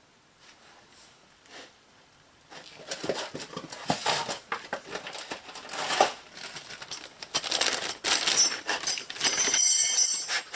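Thin steel brake pad hardware clips clinking and clicking as they are handled and fitted, with some rustling. The clicks start about two and a half seconds in and come thick and irregular.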